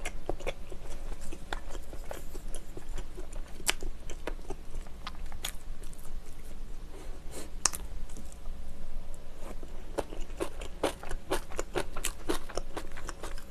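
A person chewing food close to the microphone, with irregular crunches and sharp wet mouth clicks and smacks.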